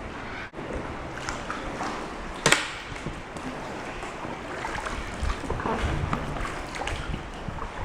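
Paddling an inflatable canoe: water splashing and dripping off the paddles, with small knocks and one sharp knock about two and a half seconds in.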